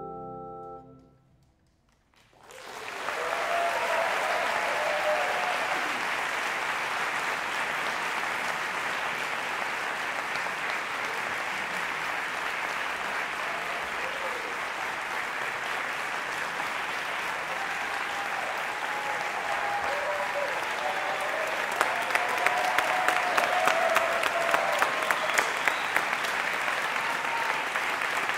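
The last chord of a mallet percussion ensemble rings and fades away in the first second, followed by a moment of hush. Then a concert audience breaks into sustained applause, and near the end a few sharper claps stand out, about two a second.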